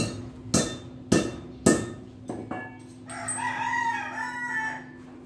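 Four sharp metallic clanks about half a second apart, like hammer blows on steel, then two lighter knocks, and then a rooster crowing for nearly two seconds. A steady low hum runs underneath.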